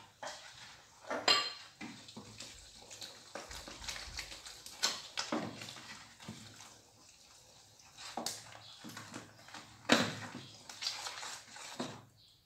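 A spoon stirring a wet bread dough in a bowl, scraping and clinking irregularly against the bowl's sides, with a sharp clank about a second in and another near the end.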